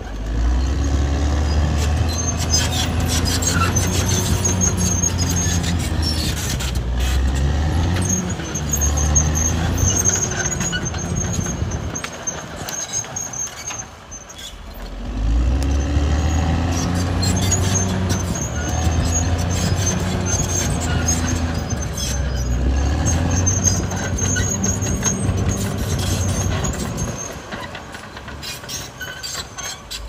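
Caterpillar D6R XL bulldozer's diesel engine working under load, its pitch rising and falling, with a thin high squeal coming and going. The engine eases off briefly about halfway through and again near the end.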